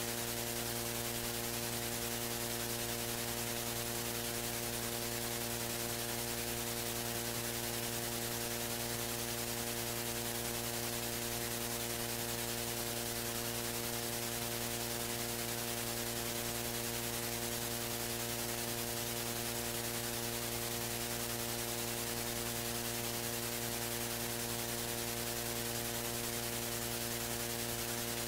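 Steady electrical mains hum with an even layer of hiss, unchanging: the noise floor of the audio feed, with no other sound above it.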